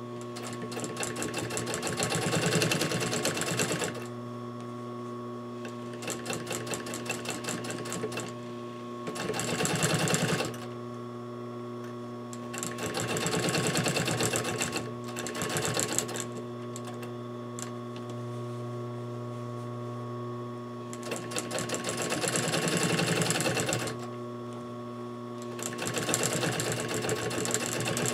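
Sewing machine stitching in several stop-start runs of one to four seconds as fabric is topstitched along its edge and pivoted at the corners. A steady hum carries on in the pauses between runs.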